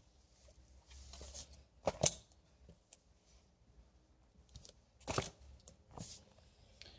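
Comic books being handled: a few short rustles and light knocks of paper or plastic, the loudest about two seconds in and again about five seconds in.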